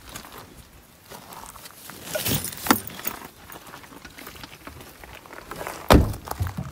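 Rustling and small clicks of someone climbing out of a car's back seat, then a single heavy thump near the end as the car door is shut.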